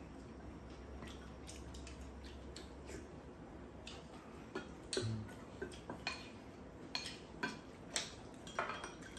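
Spoons clicking and scraping against ceramic bowls during a meal. The clicks are sparse and faint at first, then sharper and more frequent from about halfway through.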